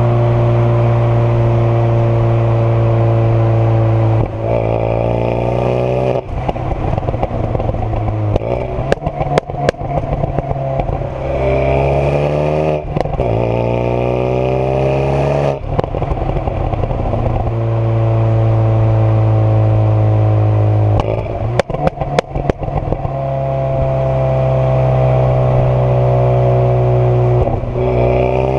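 Renault Mégane 225 Trophy's turbocharged 2.0-litre four-cylinder, running through an exhaust with the catalytic converter and middle silencer removed. It holds a steady drone and rises in revs several times under acceleration. Between the pulls come sharp pops and crackles from the exhaust on the overrun as the throttle is lifted.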